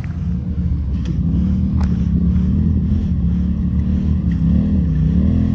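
Off-road vehicle's engine running at low, steady revs on a rocky trail, its pitch dipping and climbing back about four and a half seconds in as the throttle changes. Two light knocks in the first two seconds.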